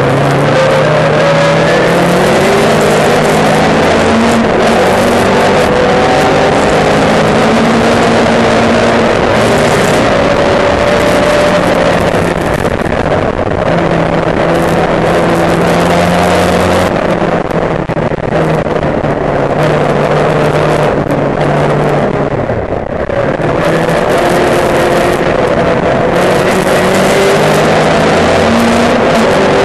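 Racing saloon car's engine heard on board at race pace, its pitch climbing and dropping in steps as it changes gear and goes on and off the throttle through the corners. Loud wind and road rush runs under it, with a brief easing of the engine about two-thirds of the way through.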